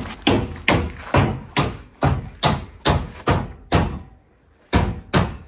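Footsteps on hollow wooden floorboards, a quick regular tread of about two and a half steps a second, then a pause of about a second and two more steps near the end.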